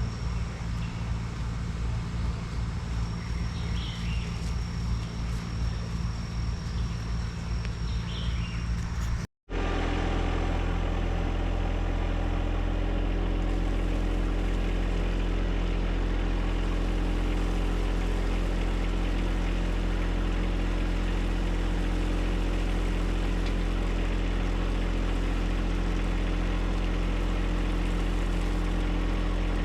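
John Deere 1025R subcompact tractor's three-cylinder diesel engine running under way. About nine seconds in there is a momentary cut, after which the engine runs at a steady, even drone.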